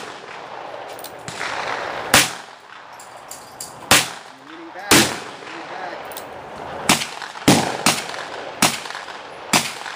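Smith & Wesson .38 Special revolver fired shot by shot, with about eight sharp reports spaced roughly a second apart.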